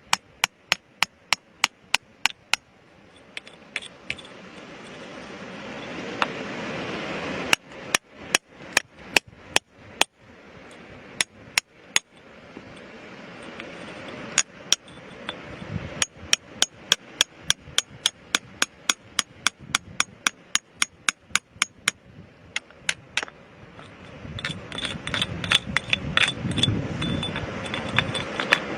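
Hammer striking rock over and over, about two to three sharp blows a second, in runs broken by short pauses. A rising rushing noise swells up twice between the runs of blows.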